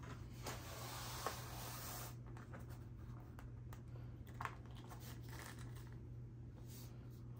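Faint rustling of cloth and hands for about two seconds, then scattered light taps and clicks as plastic action figures and their bases are handled and set down on a cloth-covered table.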